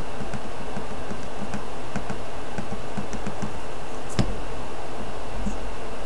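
Light, quick tapping of a small plastic funnel and glass vial, about three or four taps a second, shaking glitter and tiny stars down into the vial, over a steady hiss. A single sharper click about four seconds in, then only a few scattered taps.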